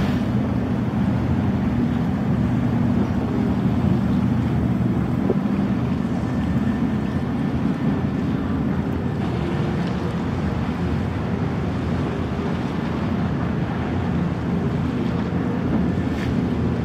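A CoCo Yachts Coastal Cruiser 199 high-speed catamaran ferry with MJP waterjets running at speed. Its engines make a steady low drone, heard with the wash of its wake and wind buffeting the microphone.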